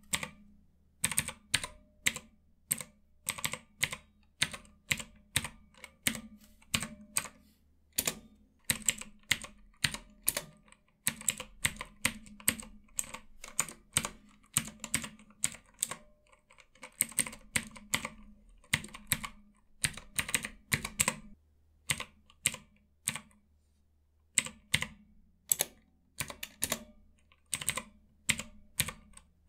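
Mechanical numpad with Outemu Blue clicky switches being typed on: a steady stream of sharp key clicks, several a second, with a few short pauses.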